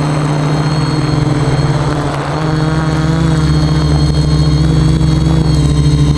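Radio-controlled quadcopter's electric motors and propellers buzzing steadily in flight, the pitch shifting slightly a little over two seconds in.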